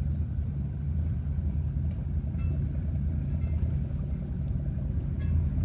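Small boat's engine running steadily, a low, even hum.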